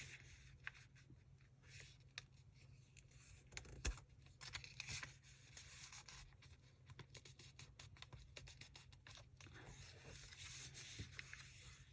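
Faint paper handling: scraping and rustling with many small ticks as paper is folded and creased by hand, with one sharper tap about four seconds in.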